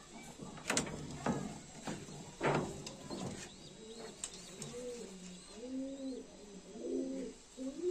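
Madrasi high-flyer pigeons cooing in the loft, a run of low, rising-and-falling coos repeated through the second half. Before that come a few short, sharp sounds.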